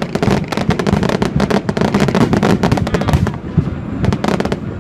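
Aerial fireworks bursting in quick volleys of sharp crackling pops, dense for the first three seconds or so, then after a short lull another cluster near the end.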